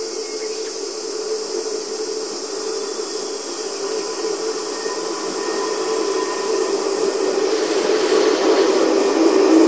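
Electric train on the JR Nara Line running at a slow crawl, a steady rumble and hum that grows steadily louder.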